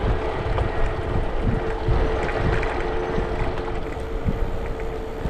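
Wind buffeting the microphone of a moving bicycle, a dense low rumble with a steady hum underneath.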